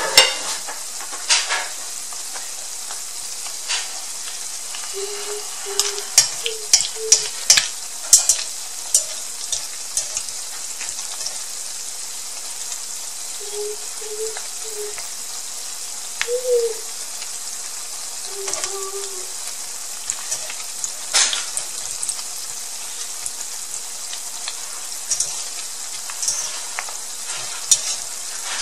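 Shredded tilapia deep-frying in hot oil in a wok: a steady sizzle, broken by scattered clicks and taps as a slotted spatula stirs against the wok, most often about six to nine seconds in and once sharply about twenty-one seconds in.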